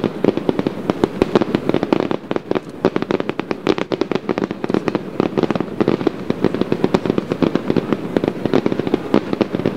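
Fireworks bursting in a dense, rapid barrage of sharp crackling pops, many a second, without a break, over a steady low rumble.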